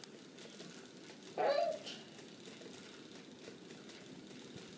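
Closed-face spincast fishing reel being cranked to wind fresh line onto its spool, a faint steady whir. A short vocal sound cuts in about a second and a half in.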